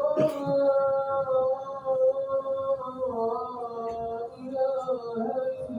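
A man's voice chanting in long, held notes that glide slowly in pitch, with few breaks; the pitch steps down a little about three seconds in. A brief click sounds just after the start.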